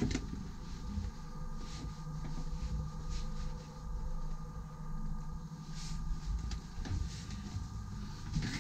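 Steady low mechanical hum of a motor yacht's onboard machinery, with a few faint soft knocks.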